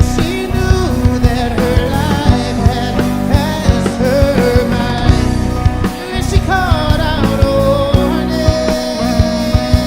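Rock band playing live: a drum kit keeps a steady beat under guitars, with a melodic lead line bending in pitch over the top.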